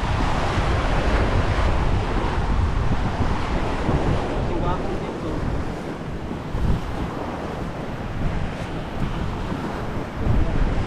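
Wind buffeting the microphone in uneven gusts, over a steady rushing hiss.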